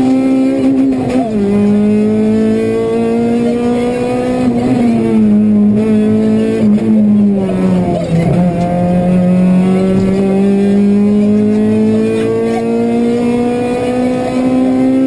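Honda Civic Type-R rally car's four-cylinder engine heard inside the cabin, driven hard: the revs drop with a gearshift about a second in and climb slowly, fall away for a few seconds around the middle as the car slows, then climb steadily again under load.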